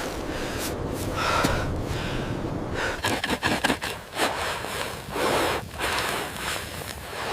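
A person breathing hard: several heavy, gasping breaths about a second apart.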